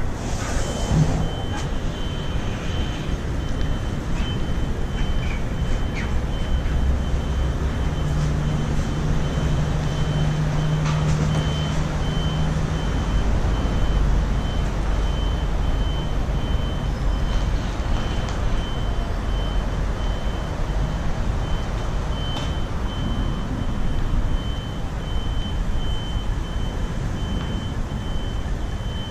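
Scania R520 V8 truck-and-trailer reversing: a steady diesel engine rumble with a reversing alarm beeping at a regular rate throughout. The engine note holds higher for a few seconds from about eight seconds in.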